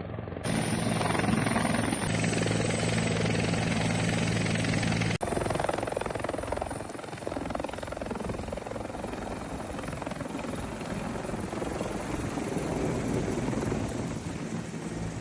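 Helicopter running, a steady engine and rotor sound, with an abrupt edit change about five seconds in.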